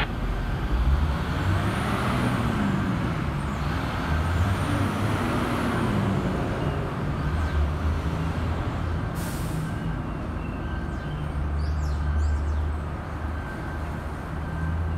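Subway train running slowly along elevated steel track: a steady low rumble of wheels on rails with a thin steady whine above it.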